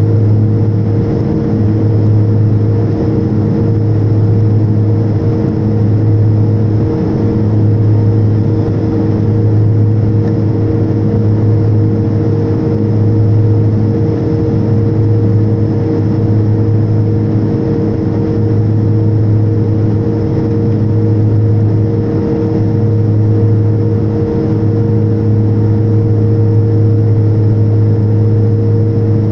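Cabin noise of a turboprop airliner in flight: a steady drone of engine and propeller, made of several low tones, with the deepest hum slowly swelling and fading every few seconds.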